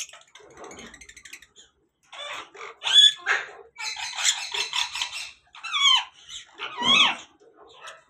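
African grey parrots calling: after a faint scratchy start, a run of squawks and dense chatter mixed with short whistles that glide up and down, the loudest call about three seconds in. These are the calls of a breeding pair, which the uploader labels a mating call.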